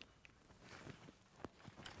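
Near silence with a few faint, scattered clicks of a hand wrench working on the truck's front wheel hub, the clearest about a second and a half in.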